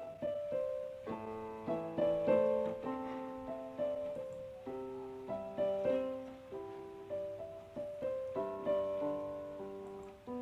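Background piano music: a slow, gentle melody of single notes over soft chords, each note struck and dying away.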